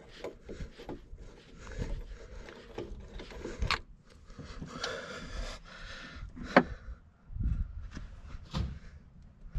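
Scattered knocks, clinks and scraping of tools at the engine as the oil is drained, with a short rush of noise about five seconds in. The oil is being drained to check it for coolant, the suspected oil-and-coolant mixing fault.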